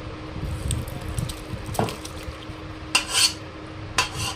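A spoon stirring and scraping a thick ground lentil-and-wheat haleem paste in a metal bowl, with a few sharp clinks of metal against the bowl. The loudest clinks come about three and four seconds in.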